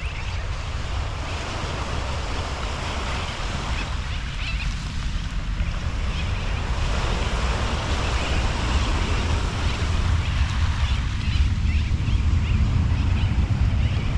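Small waves washing up on a sandy beach, with wind buffeting the microphone in a steady low rumble.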